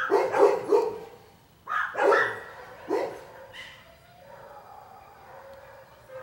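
A dog barking and yipping in short bursts: a quick run of barks in the first second, more around two and three seconds in, then quieter.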